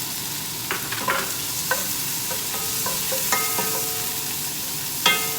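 Prawns, garlic and ginger frying in hot oil in a wok: a steady sizzle, with a spatula stirring and striking the pan several times, some strikes leaving a brief metallic ring.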